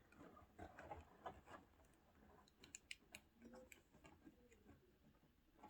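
Near silence with faint handling noise: a few light clicks and taps, most of them a little under three seconds in.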